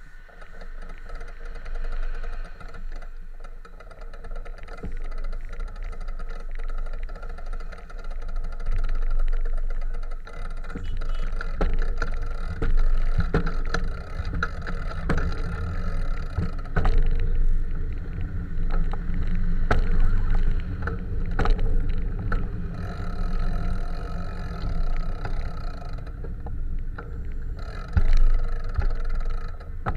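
Riding a bicycle through city traffic: wind rumble on the camera microphone mixed with the engines of jeepneys and cars running close by, with scattered clicks and rattles.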